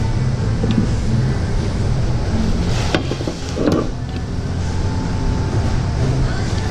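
Steady low mechanical hum, with a few light clicks and clinks of brake parts and a lube brush being handled, the loudest about three seconds in.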